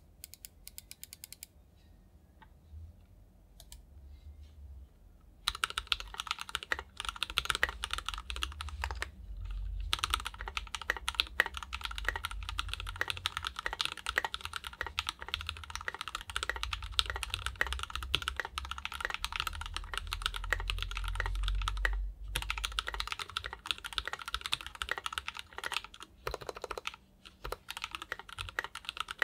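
Typing on a KBDFans 5 Degree mechanical keyboard fitted with SP-Star Meteor White switches: a fast, steady run of keystrokes. The first few seconds hold only a few scattered, quieter key presses, then continuous typing starts about five seconds in, with a few brief pauses.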